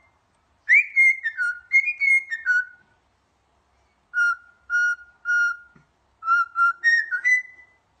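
Cockatiel whistling a tune in three short phrases of clear whistled notes. The middle phrase is three like notes in a row, and the last phrase ends on a higher held note.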